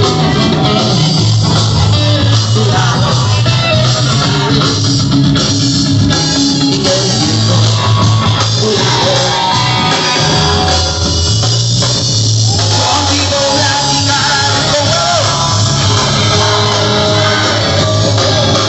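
Live rock band playing loudly, with a male singer singing into a microphone over guitar and drums.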